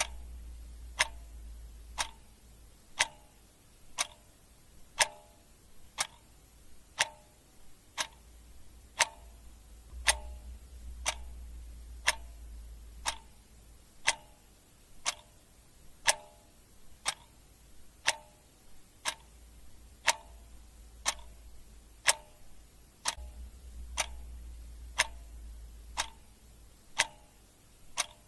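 Ticking clock sound effect: sharp, steady ticks at one per second, over a faint low hum.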